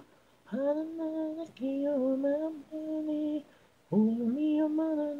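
Unaccompanied singing voice, an isolated a cappella vocal track: four short sung phrases with stepping pitch, separated by brief pauses, with no instruments.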